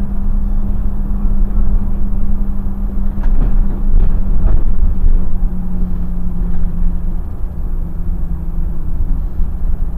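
Irisbus Crossway LE city bus under way, its engine and drivetrain giving a steady low rumble and hum. The hum's pitch shifts slightly about halfway through as the bus changes speed.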